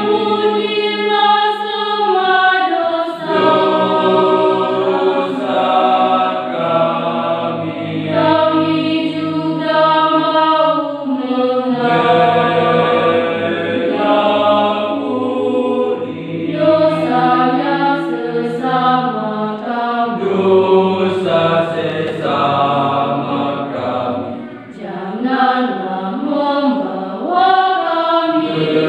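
Mixed-voice church youth choir singing a hymn in several-part harmony, led by a conductor.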